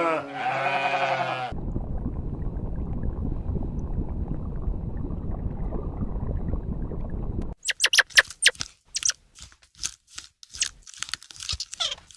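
A sheep bleats once, a single call of about a second and a half. Several seconds of dense low rumbling noise follow, then a run of sharp clicks mixed with short high calls.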